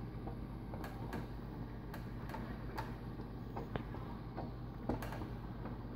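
Homemade wooden conveyor belt with a roller-chain drive running: a steady low hum under light, irregularly spaced ticks and clicks from the moving mechanism.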